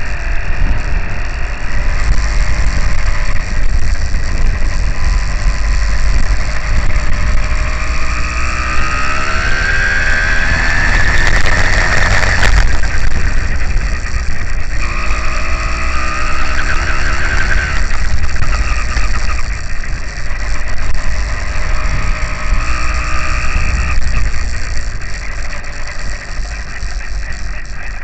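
Small two-stroke bicycle engine kit (F80) running under way on a rough dirt track, its pitch climbing steadily as it revs up from about eight to twelve seconds in, then shifting up and down. A heavy low rumble of wind and bumps sits under it, with a sharp knock about halfway through.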